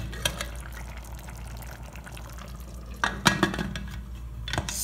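Pressure cooker's metal lid being fitted and closed onto the pot: a few sharp metal clicks and clinks, with a cluster of them about three seconds in.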